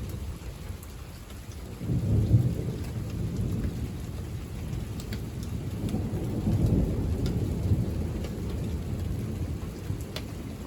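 Thunder rumbling low, swelling about two seconds in and again between about six and eight seconds. Rain falls throughout, with scattered sharp drop ticks close by.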